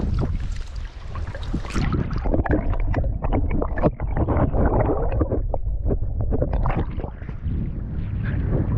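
Shallow river water splashing and gurgling around hands holding a brown trout in the current, with heavy wind rumble on the microphone. About four seconds in, the camera goes under the surface and the sound turns dense and muffled for a moment.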